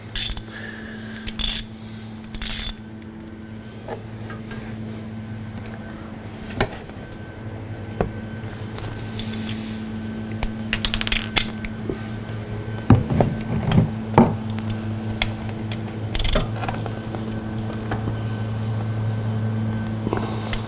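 Metal hand tools clinking and tapping on metal in scattered sharp clinks, with a busy cluster of them a little past the middle, over a steady low hum.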